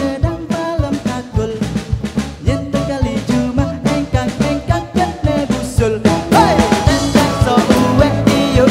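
Balinese ethnic fusion band playing an instrumental passage, drums keeping a steady beat under melodic instruments; it grows fuller and louder about six seconds in.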